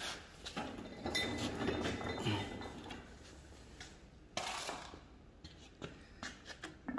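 Light metallic clinks and a short scrape as a steel facing-tool mandrel is handled and fitted into the end of a steel rear axle housing tube.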